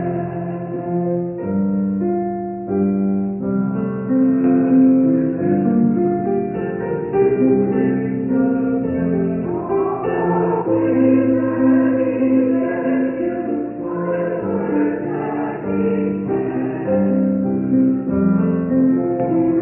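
Church choir singing with instrumental accompaniment, held chords moving from note to note.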